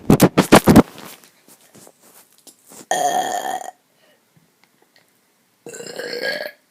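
A person burping twice, each burp a pitched, rough sound just under a second long, the two about three seconds apart. A quick run of loud knocks comes right at the start, before the burps.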